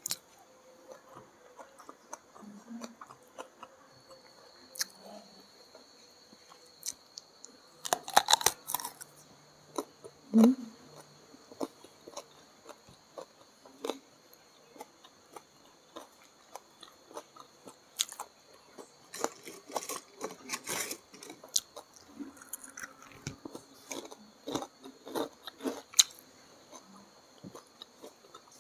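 Close-miked chewing and biting of a mouthful of rice and side dishes eaten by hand, with wet mouth clicks and some crunching. The clicks come unevenly, in louder clusters about eight seconds in, around ten seconds and around twenty seconds.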